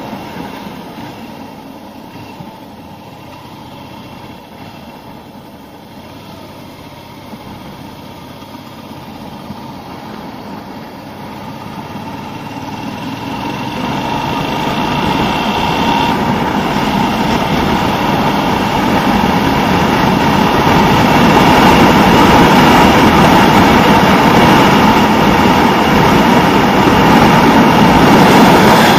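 Suzuki SV650 motorcycle's V-twin engine running under way, mixed with rushing wind noise on the microphone. The sound swells over the middle of the stretch and then stays loud and steady.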